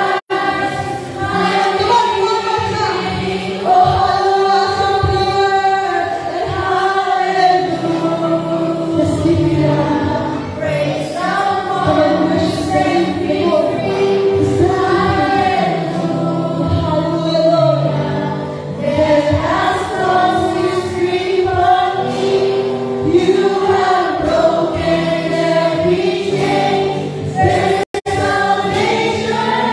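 A woman sings a gospel worship song into a microphone over a live church band with electric guitars and drums, other voices singing along. The sound cuts out for an instant just after the start and again near the end.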